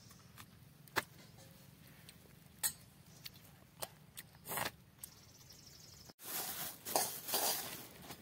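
A few scattered clicks and clinks of steel dishware. About six seconds in, a louder stretch of rustling and clinking follows as eggs in a plastic bag and steel bowls are handled.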